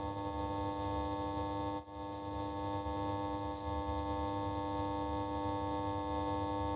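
Synthesizer background music: a steady drone of held notes over a low, pulsing bass, with a brief dip about two seconds in.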